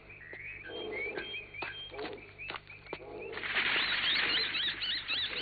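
Jungle ambience of repeated bird chirps with a few sharp clicks, then a little over three seconds in a bird bursts into loud flapping and rapid, shrill squawking as it swoops past.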